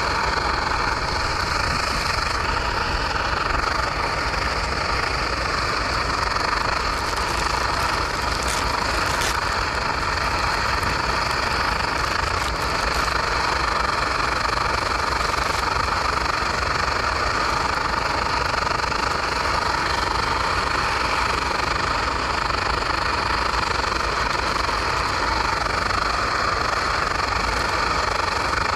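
Portable canister gas stove burner running at full flame under a pot, a steady rushing noise that holds an even level throughout, with a couple of faint clicks about a third of the way in.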